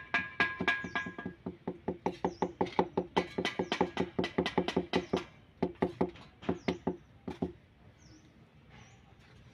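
Rapid knocking on ceramic tiles as they are tapped down into wet mortar to bed them level, about five knocks a second, with a short break and then a stop about seven and a half seconds in.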